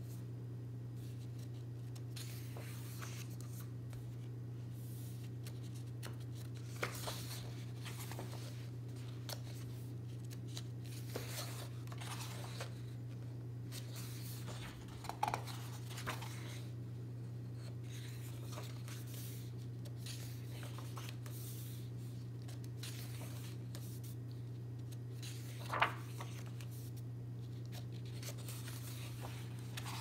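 Paper pages of a large paperback activity book being flipped and rustled by hand: a string of soft swishes with a few sharper page flaps, over a steady low hum.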